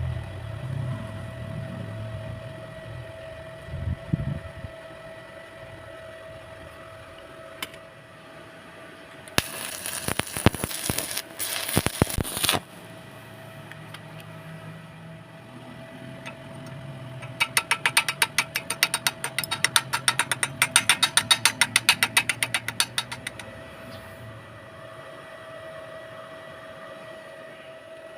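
Stick-welding arc crackling for about three seconds, over a steady electrical whine. Later comes a rapid run of sharp taps or clicks lasting about five seconds.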